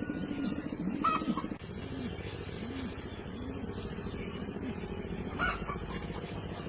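Chickens clucking: a run of low, evenly repeated clucks, with a brief higher call about a second in and another near the end.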